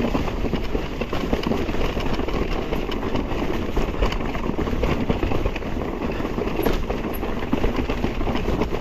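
Electric mountain bike riding fast over a rough, rocky trail: a steady rumble of tyres on stone, thick with small knocks and rattles from the bike.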